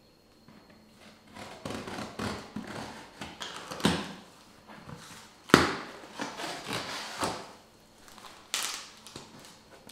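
Cardboard shipping box being opened: packing tape slit and pulled, then the stiff flaps folded back with crackling and rustling of cardboard. A sharp snap stands out a little past halfway.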